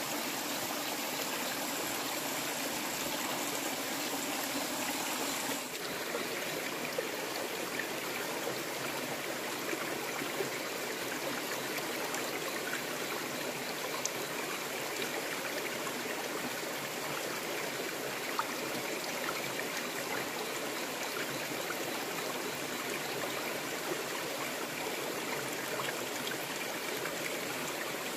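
Shallow stream flowing over rocks: a steady water rush with no break.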